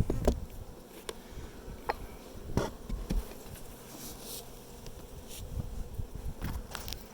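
Honey bees buzzing in a steady hum around an opened hive, with a scatter of short knocks and clicks as the wooden hive boxes are handled.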